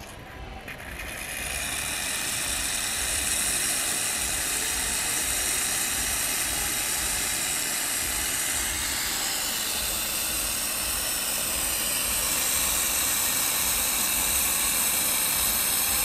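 Espresso machine venting steam with a loud, steady hiss that builds up over the first two seconds. A faint whistle in the hiss changes pitch about halfway through.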